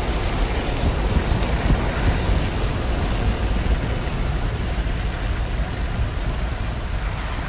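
Heavy rain pouring down: a steady, even hiss with a deep rumble underneath.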